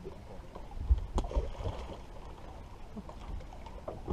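Water lapping and trickling against a boat hull, with a low bump and a sharp knock just after a second in.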